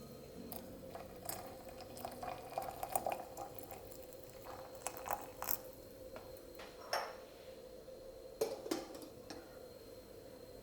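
Scattered light clinks and taps of kitchenware, dishes and utensils being handled, over a faint steady hum.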